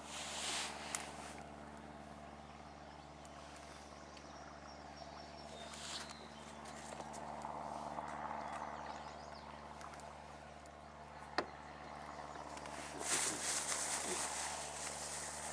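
Quiet outdoor ambience with a steady low hum, broken by rustling and a few sharp clicks from fishing tackle and a plastic bag being handled, the rustling strongest just after the start and again near the end.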